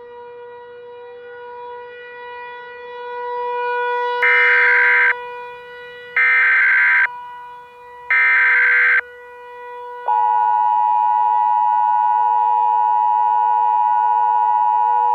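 A civil-defence-style warning siren holds a steady tone. Over it come three short, harsh bursts of Emergency Alert System SAME header data, evenly spaced about two seconds apart. Then, about ten seconds in, the loud two-tone EAS attention signal starts and holds steady, announcing the emergency alert.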